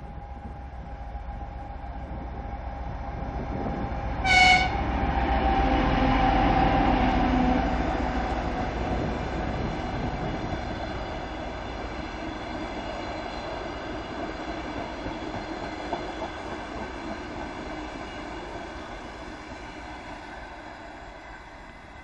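A 2M62U diesel locomotive, with two-stroke V12 diesel engines, sounds a short horn blast about four seconds in. It then runs past at speed with its engines working. The passenger cars of the DRB1 diesel train follow, their wheels clattering over the rails, and the sound slowly fades as the train moves away.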